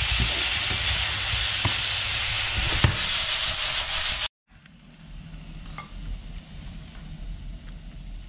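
Shrimp in chilli sauce sizzling in a frying pan while being stirred and tossed with a wooden spatula, with small knocks of the spatula against the pan. The sizzle cuts off abruptly a little past four seconds, leaving a quiet room with a few faint clicks.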